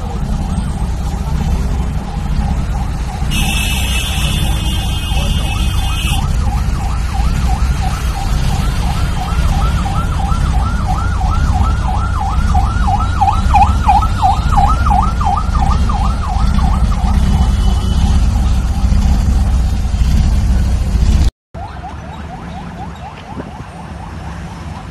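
Police vehicle siren on a fast yelp, sweeping up and down about three times a second, over a steady low rumble of engines and traffic. A brief hiss sounds about three seconds in, and after a short break near the end the siren carries on quieter.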